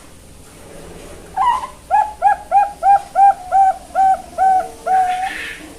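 Young Bangkok-strain zebra dove (perkutut) cooing one song phrase: an opening note, then a quick run of about eight short coos at roughly three a second, ending on one longer drawn-out note.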